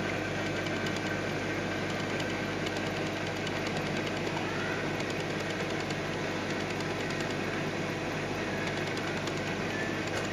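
Steady low hum with an even hiss from a Red Sea Max 130D all-in-one reef aquarium's running equipment (pumps and skimmer), unchanging throughout.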